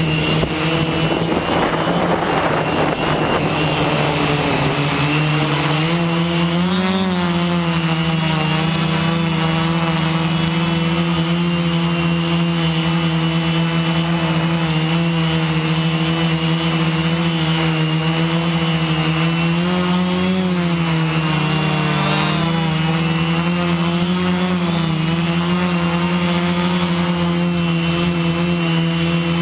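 Multirotor FPV drone's electric motors and propellers whining steadily, heard close up from its onboard camera. The pitch rises briefly with the throttle about 7 seconds in and again around 20 seconds. A rushing noise lies over the first few seconds.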